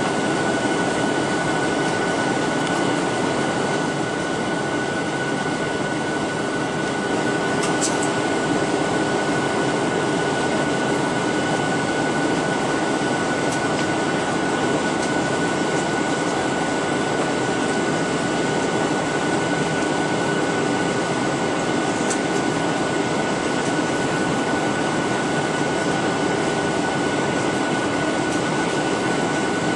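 Steady cabin noise of a Boeing 737-900ER airliner on descent, heard from a window seat over the wing: the rush of airflow and the CFM56-7B engines, with a steady high whine.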